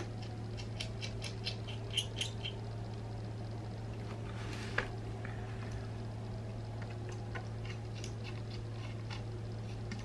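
Jeweler's screwdriver turning the small screws of a Canon 7 rangefinder's shutter speed dial as they are tightened: a quick run of light metal ticks in the first couple of seconds, one sharper click near the middle, and scattered faint ticks later. A steady low hum runs underneath.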